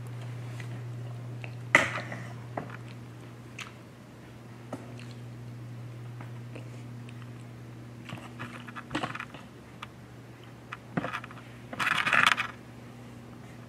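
Handling and movement noise from a handheld camera: scattered clicks, knocks and scuffs over a steady low hum, with a louder crunching rustle about twelve seconds in.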